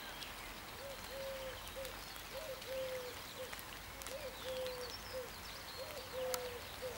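A dove cooing, repeating a three-note phrase (short, long, short) about every second and a half, with fainter chirps from small birds.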